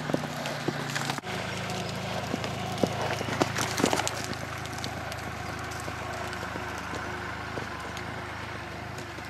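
Hoofbeats of a Lusitano horse cantering loose on arena sand, loudest as it passes close about three to four seconds in, over a steady low hum.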